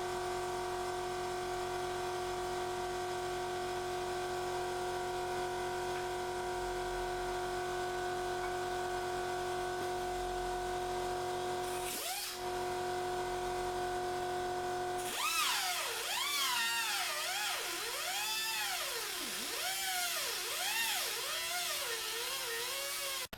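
Angle grinder with a cutting disc whining at steady speed, then its pitch dipping and recovering over and over from about fifteen seconds in as it bites into the rusty steel chassis rail.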